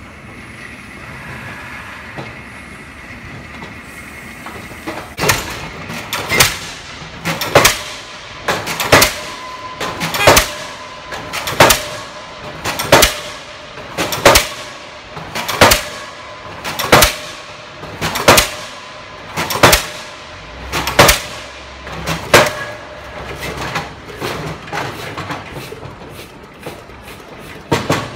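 Diesel pile hammer on a crawler pile-driving rig driving a precast concrete pile. After about five seconds of steady machine running, the hammer starts firing: one sharp blow about every 1.3 seconds, then lighter, quicker blows near the end and a final heavy strike.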